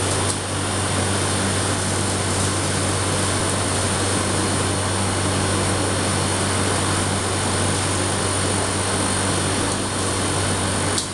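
Gas-fired cotton candy machine running: a steady whirring noise with a low hum as its head spins sugar into floss.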